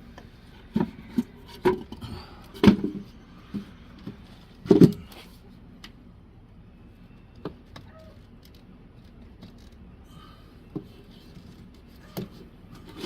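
PVC pipe and fittings being handled and pushed together, hard plastic knocks and clatters: a quick run of sharp knocks in the first five seconds, then a few scattered single taps.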